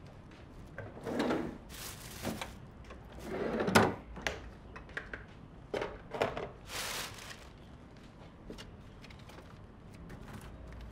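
Groceries being put away in a refrigerator: plastic bags rustling and bottles and packages set down on the shelves with a series of knocks, the sharpest about four seconds in.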